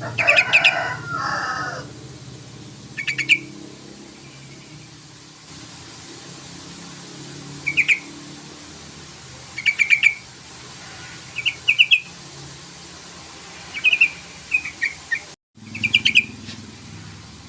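Yellow-vented bulbul (trucukan) calling in short chattering bursts of quick notes, one every second or two, with the loudest and fullest burst at the start. The sound drops out completely for a moment near the end.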